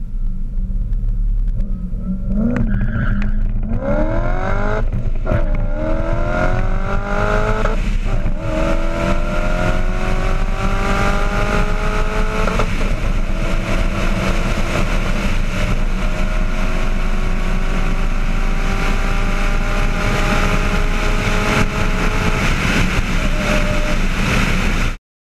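V8-swapped Porsche 944 heard from inside the cabin at full-throttle acceleration in a drag race. The engine note climbs in pitch through the gears, with upshifts at about 5, 8 and 12 seconds, then makes one long slow climb in a high gear over steady wind and tyre noise. It cuts off suddenly near the end.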